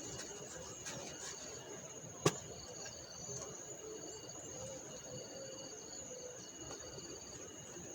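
Insects trilling steadily: one high continuous tone, with a lower trill switching on and off every second or so. A single sharp click about two seconds in.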